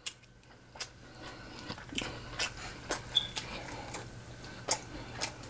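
A person chewing a mouthful of stuffed chicken breast, with soft wet mouth clicks and smacks scattered irregularly through the chewing.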